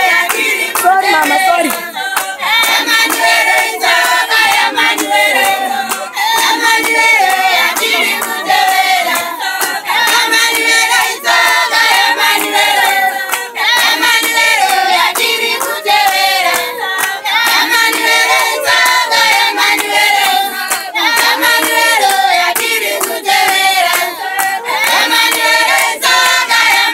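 A congregation of women singing a Shona hymn together, clapping their hands in time with the song.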